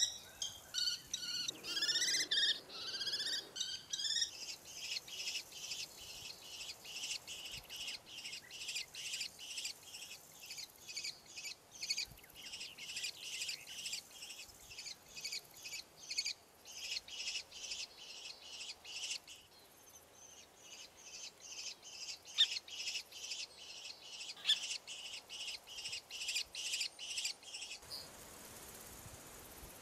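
Common kestrels calling: loud, sharp, pitch-bending calls over the first few seconds, then a long, rapid series of shorter, fainter high calls that stops near the end, leaving a faint steady hiss.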